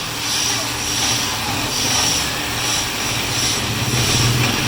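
Wood lathe running with a steady motor hum while a cutting tool scrapes the spinning wood, the hissing cut swelling and fading about once a second.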